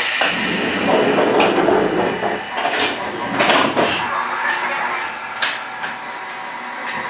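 Electric train standing at a station: a rush of noise for about two seconds, then a series of sharp clunks and clicks from the car's doors and equipment.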